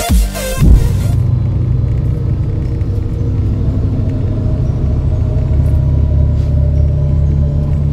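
Electronic dance music cuts off about a second in, giving way to the steady low rumble of a moving road vehicle heard from inside the cabin, with a faint steady hum over it.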